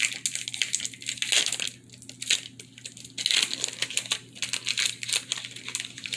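Foil Pokémon booster pack wrapper crinkling and tearing as it is opened by hand, in irregular bursts with a brief lull about two seconds in.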